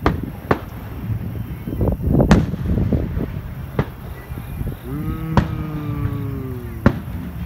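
Distant aerial fireworks shells bursting, several sharp bangs over a low rumble, the loudest a little over two seconds in. From about five to seven seconds in, a long low held note, sliding slightly down in pitch, sounds between the bangs.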